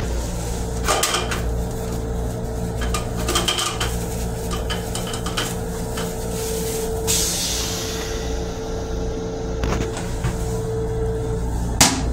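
Steady low rumble and hum inside a Metro-North M7 railcar restroom, with scattered plastic clicks and knocks as the toilet seat is handled and lifted, a brief hiss about seven seconds in, and a sharp knock of the seat near the end.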